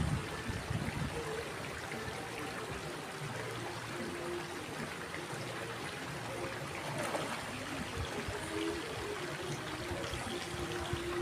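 Water flowing and trickling steadily, with a few dull low knocks in the first second.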